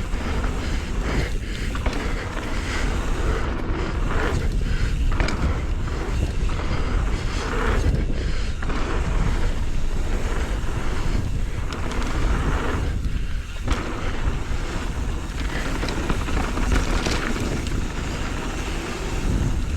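Mountain bike rolling down a dirt trail: tyre rumble and the rattle of the bike under steady wind buffeting on the microphone.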